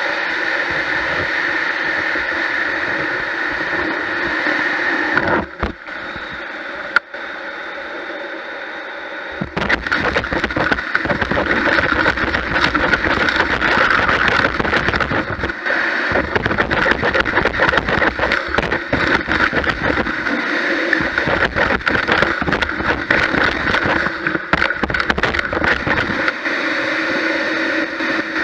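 Gutter vacuum running with its nozzle in the gutter: a steady motor whine over rushing air. It thins briefly about five seconds in. From about nine seconds in it grows louder and fuller, with a constant crackle of debris and moss being sucked up the hose.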